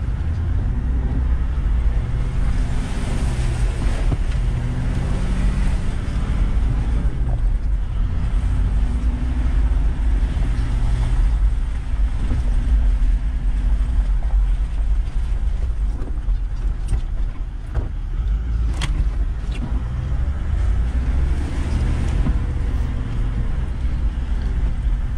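Four-wheel-drive engine and drivetrain heard from inside the cab while crawling along a muddy bush track, a steady low rumble whose note rises and falls with the throttle. A few sharp knocks come about two-thirds of the way through.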